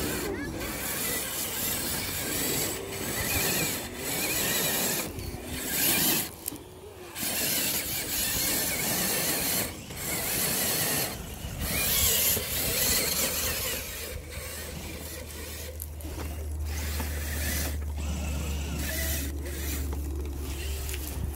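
Electric motor and geared drivetrain of an RC crawler truck whining as the throttle is worked, the pitch rising and falling and cutting out several times, with gear rattle. A low steady hum comes in about halfway through.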